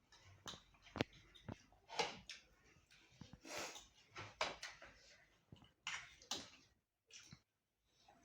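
Close eating sounds: irregular chewing and slurping noises with a few sharp clicks in between.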